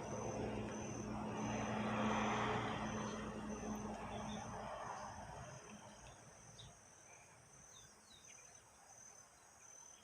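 Insect, cricket-like, chirping steadily in a high pitch at about two pulses a second. A low steady hum underneath fades away about halfway through, and a few faint short high notes sound in between.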